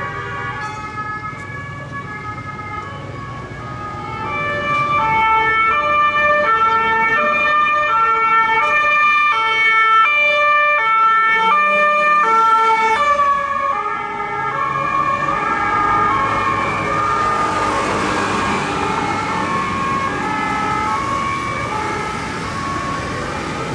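Swiss police two-tone siren alternating evenly between two pitches. It gets louder about four seconds in as the car comes closer. After a break midway, another police car's two-tone siren carries on over traffic noise.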